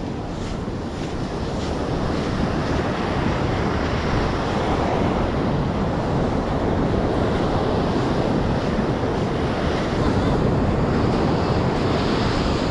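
Ocean surf washing onto a sandy beach, a steady rushing noise that swells slightly a couple of seconds in, mixed with wind buffeting the microphone.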